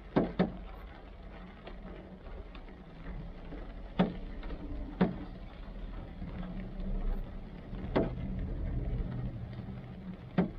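Rain on a car heard from inside the cabin: a handful of loud, sharp taps of large drops striking the car's body, spaced irregularly a second or several apart, over a low steady rumble that swells for a few seconds in the second half.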